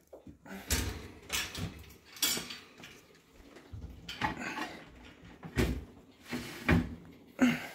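Irregular knocks, rattles and scrapes of a hand rummaging inside a wire pet cage, bumping the bars and door frame while clearing out bedding and debris. There are about half a dozen separate bumps, the loudest a little over halfway through.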